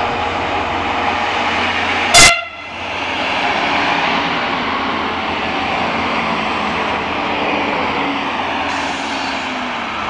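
SNCF TER diesel railcar (X 73500 type) giving one short, very loud horn toot about two seconds in, answering a wave. It then runs past close by with engine and wheel noise.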